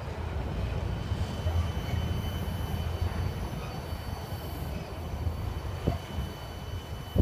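Empty intermodal well cars of a freight train rolling past, a steady low rumble with a couple of short sharp knocks near the end.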